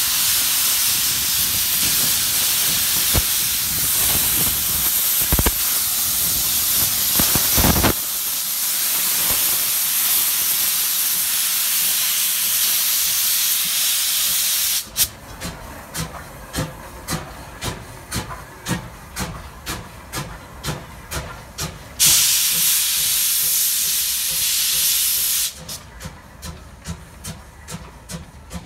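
JNR Class C12 2-6-2T steam tank locomotive C12 66 blowing off steam with a loud, steady hiss for about fifteen seconds. The hiss comes from its cylinder drain cocks, which are open as it starts away. It then begins chuffing slowly, a little under two beats a second. A second burst of hiss lasts about three seconds before the chuffing resumes.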